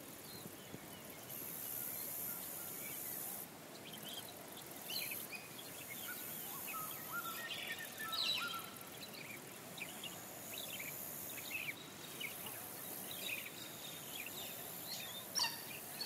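Savanna ambience: scattered bird chirps and short whistled calls over a high insect hiss that fades in and out.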